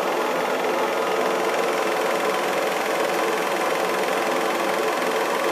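Hanimex 800 DST Dual 8 film projector running 8mm film: the steady, even whirring and clatter of its motor and film transport.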